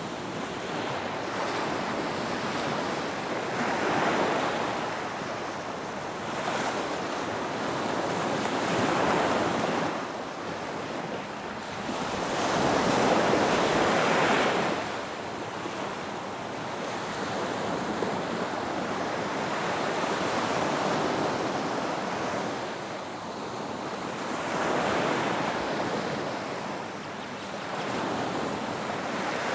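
Ocean waves breaking on a beach, a steady wash of surf that swells and eases every four to five seconds as each wave comes in, with some wind on the microphone.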